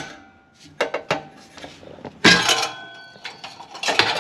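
Metal clinks and clanks from a socket wrench working the V-band clamp on a titanium exhaust: a couple of sharp clicks, then a louder clank about two seconds in with a brief metallic ring, and another near the end.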